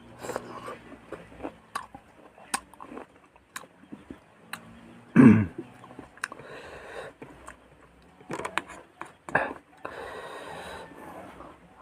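A person eating Ganapathi naranga fruit, making chewing and wet mouth clicks. About five seconds in there is one loud, short vocal sound falling in pitch, like a throat clearing or cough.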